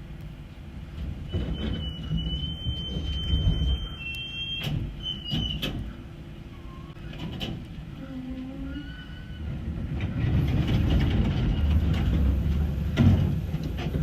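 Heavy vehicle rumble with a high, steady metallic squeal for a few seconds near the start; the rumble grows louder in the second half.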